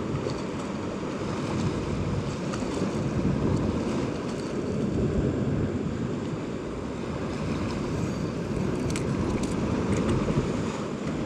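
Steady wind buffeting the microphone over the wash of ocean surf against a rock ledge, a low, even rushing noise.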